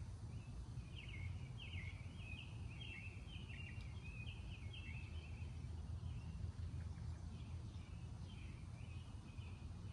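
A songbird singing a quick, twittering run of short high chirps, busiest in the first half and fainter later, over a steady low background rumble.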